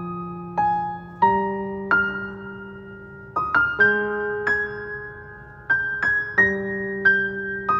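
Background piano music: notes and chords struck about once a second and left to ring and fade.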